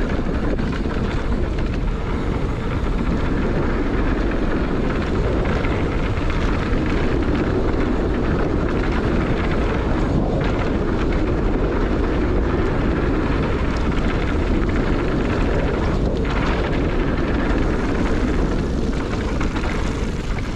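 Steady, unbroken rush of wind on the microphone mixed with the rumble of a mountain bike's knobby tyres rolling over dirt while riding.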